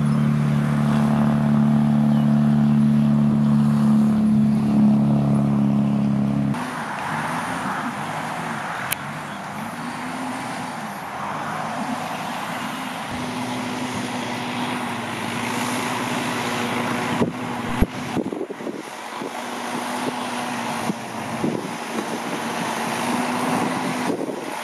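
Massey Ferguson 445 tractor's diesel engine running at a steady speed, heard close and strong at first. About six and a half seconds in the drone drops abruptly and sounds farther off and rougher, with a few sharp knocks about two-thirds of the way through.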